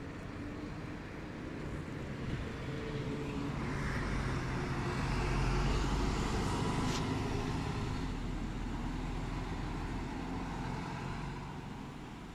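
City bus driving past: its engine and tyre noise grows louder as it approaches, is loudest about six seconds in, then fades as it moves away.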